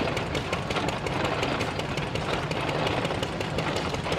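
Small antique hit-and-miss gas engines running, a fast, uneven clatter of exhaust pops and mechanical clicking over a low rumble.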